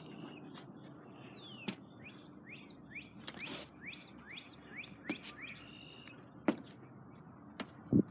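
Birds chirping in a run of short, quick, falling notes, with scattered sharp clicks.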